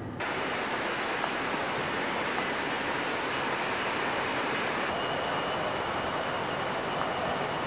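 Train running, heard from inside the carriage: a steady rushing noise that starts suddenly just after the beginning, with a faint high whine joining about five seconds in.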